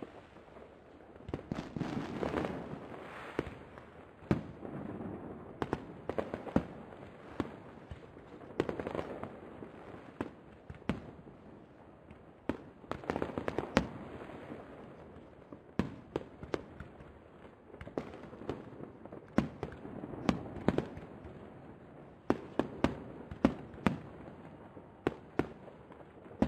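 Aerial fireworks shells bursting one after another in a display: a steady string of sharp bangs, some in quick clusters, with a rumble swelling between them.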